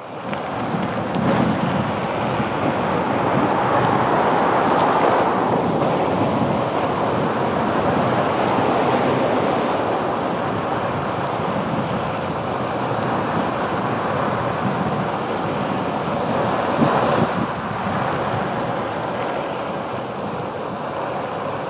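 Wind buffeting a helmet- or body-mounted action-camera microphone, together with the rolling noise of a Onewheel Pint riding on pavement. It is a steady rush with no clear tone, swelling a few seconds in and again about seventeen seconds in.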